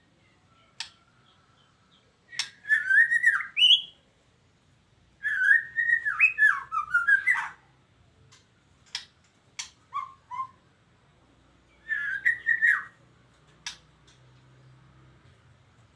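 White-rumped shama (murai batu, Medan strain) singing in three bursts of fast, rapidly gliding whistled phrases, with sharp single clicks between the bursts.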